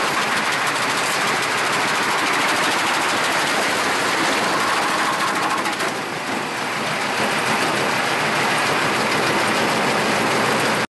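Fair Snocrete 848A tractor-mounted snowblower shredding a Geo Metro's body: a loud, dense, rapid clatter and grinding of the auger and impeller tearing through metal. It cuts off abruptly just before the end.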